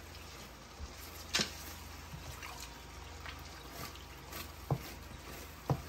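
Thick tomato and pepper stew base frying and bubbling quietly in an aluminium pot as a wooden spoon stirs it, with a few sharp pops or clicks, one about a second and a half in and two near the end.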